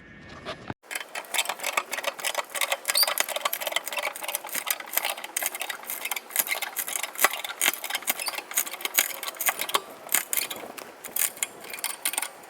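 Floor jack being pumped to raise the car: a dense, irregular run of rapid metallic clicks and rattles, starting about a second in.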